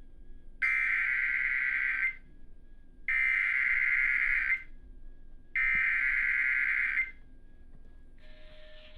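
Emergency Alert System SAME header: three identical bursts of harsh, buzzy digital data screech, each about a second and a half long with a gap of about a second between them. It is the coded start of an EAS alert, here a severe thunderstorm warning. A hiss with a steady low tone starts near the end.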